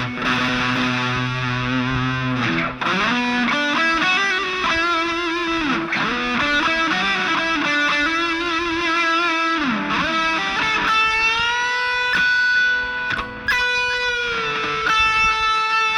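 Epiphone Les Paul 100 electric guitar played through an Aroma TG-08 mini amplifier on its distortion setting. It opens on a held chord, moves into a single-note lead line with string bends, and ends on long sustained high notes.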